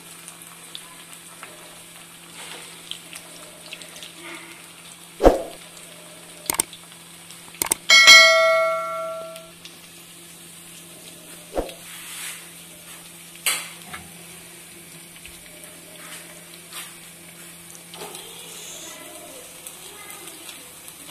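Semolina-and-potato finger snacks sizzling as they deep-fry in hot oil over a high flame, with a steel spatula clinking against the steel pan now and then as they are turned. About eight seconds in, one sharp metallic strike rings out for over a second, the loudest sound here; a steady low hum runs underneath.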